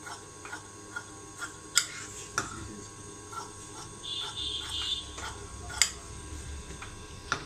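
Scattered light ticks and a few sharp clicks of tailor's scissors trimming the extra fabric from blouse pieces and lining, with a short rustle of cloth about four seconds in.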